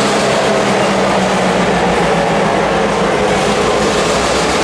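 Freight cars, mostly covered hoppers, rolling slowly past on the rails during yard switching, over a steady low engine drone.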